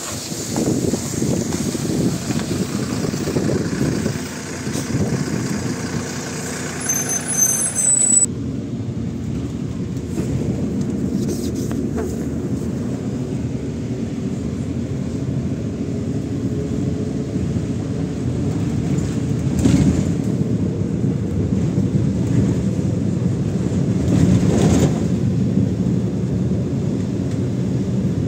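MAZ-107 city bus's diesel engine. For the first eight seconds the bus is heard from outside as it stands alongside, then the engine's steady low drone is heard from inside the cabin as the bus drives on. Two short knocks come in the second half.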